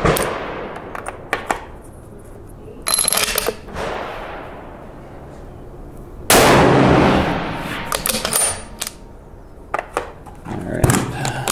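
Rifle shots from a scoped bolt-action F-Class target rifle, fired a few seconds apart, with the metallic clicks and rattles of the bolt being worked between them.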